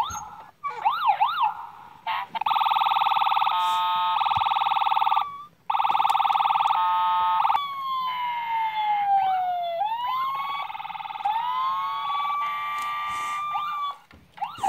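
Toy fire truck's electronic siren sounds from its small built-in speaker, set off by pressing its buttons. A quick wavering yelp comes first, then two long buzzing blasts, then siren wails that fall and rise again.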